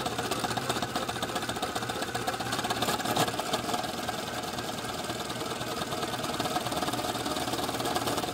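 A motorized line-spooling machine running steadily, winding braided fishing line from a supply spool onto a conventional reel. A leather-gloved hand presses on the spinning supply spool to keep the braid under tension.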